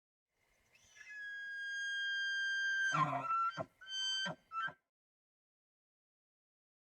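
Bull elk bugling: a long high whistle held for a couple of seconds, then deep grunting chuckles and two short squealing whistles.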